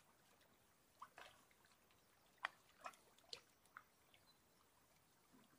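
A handful of faint, short splashes and drips: a small hooked grayling thrashing at the water surface as it is drawn in on a float rod.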